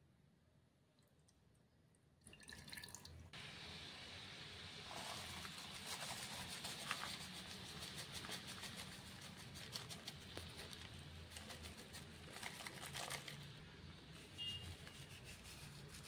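Water poured from a measuring cup into a frying pan about two seconds in, followed by a steady soft gritty hiss and patter of jelly crystals poured into the water.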